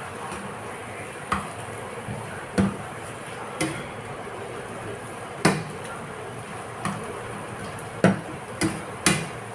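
A slotted spatula knocking and scraping against a nonstick frying pan as sweet potato leaves and garlic are stir-fried. There are about eight irregular knocks over a steady low hiss.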